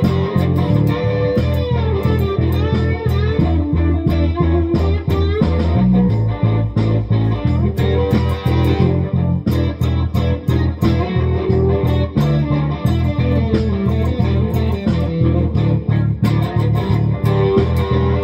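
Firebird electric guitar played through an amp, picking melodic lead lines with bent notes, over a steady low rhythm.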